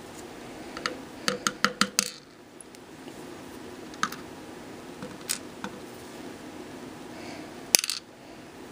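Light metallic clicks and taps of small serrated pin-in-pin lock pins and springs being handled and set down in a tray. A quick run of about six clicks comes about a second in, then a few single ticks, then another short cluster near the end.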